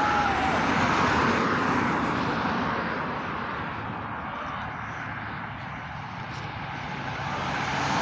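Highway traffic going by. A car passes close at the start with a rush of tyre and wind noise that fades away, and another vehicle approaches and passes near the end.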